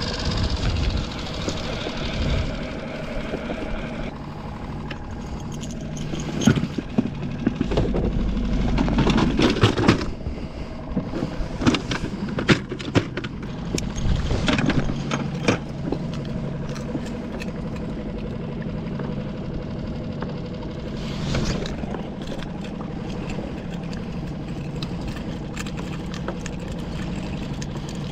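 Small outboard motor on a skiff running steadily at low speed, with a stretch of sharp, irregular knocks in the middle.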